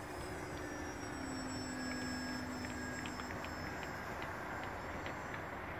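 Motor of a radio-controlled Cessna 182 model airplane droning in flight, its pitch sagging slightly lower in the first few seconds, over a steady rush of open-air noise.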